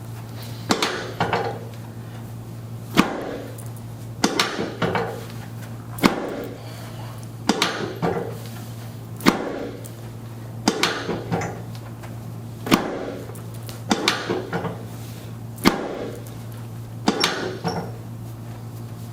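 Chiropractic adjusting on a patient lying face down: sharp mechanical clacks repeating about every three seconds, in turns of a short rattling cluster of clicks and a single sharp strike. A steady low hum runs underneath.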